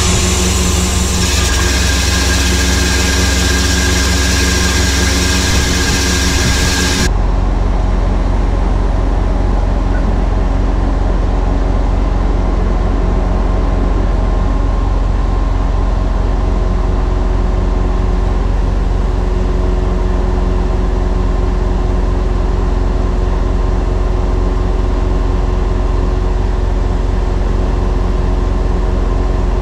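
Mercedes-Benz Actros truck's diesel engine running steadily to drive its loader crane's hydraulics while a load hangs from the crane: a loud, steady drone. About seven seconds in, the sound changes abruptly, losing its hiss and becoming a deeper hum.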